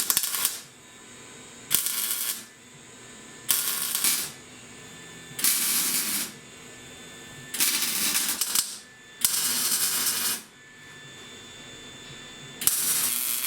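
Electric arc welder laying short welds on steel rod, joining two frame halves: seven bursts of arc noise, each about a second long, with short pauses between.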